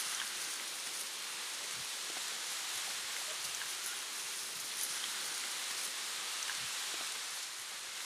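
Steady outdoor hiss, even and rain-like, with a few scattered faint ticks: open-air field ambience.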